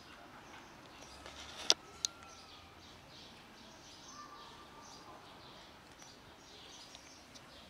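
Small birds chirping repeatedly in the background, with two sharp clicks close together about two seconds in.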